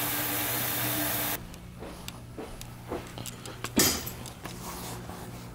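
A water tap running into a sink stops abruptly about a second and a half in. Then come quieter clicks and knocks of objects being handled on a countertop, with one sharper knock near the end.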